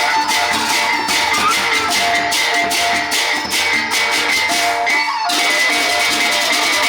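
Gendang beleq ensemble playing: ceng-ceng cymbals clash in a fast steady beat over drums and held ringing metal tones. A little after five seconds the separate cymbal strokes merge into continuous clashing.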